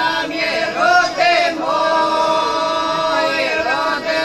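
A small group of older women singing a traditional folk song together, unaccompanied, in close voices. After an ornamented phrase they hold one long note from about a second and a half in, then turn into a falling closing phrase near the end.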